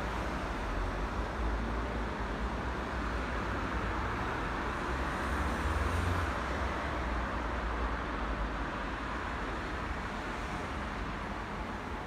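Steady city street traffic, a continuous noise of cars and buses with a low rumble throughout.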